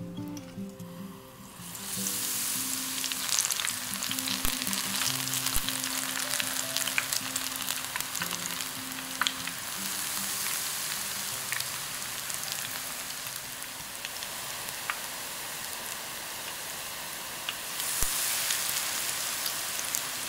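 Battered shepherd's purse deep-frying in hot oil: a steady sizzle that starts about two seconds in, with scattered pops and crackles. The sizzle grows louder near the end.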